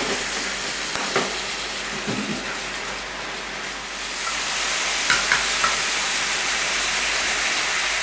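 Sliced pork sizzling steadily in a frying pan on an induction cooktop, with yakiniku sauce just added, being stirred. A few light clicks of the utensil against the pan, about a second in, around two seconds, and three close together around five seconds in.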